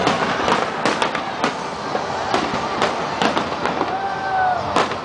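Aerial fireworks display: shells bursting one after another, about ten sharp bangs in five seconds over a continuous crackle, with the strongest bang near the end.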